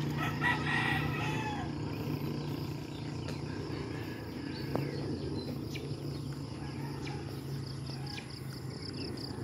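A rooster crows once, about a second and a half long, near the start. Under it runs a steady low hum and a faint high insect buzz.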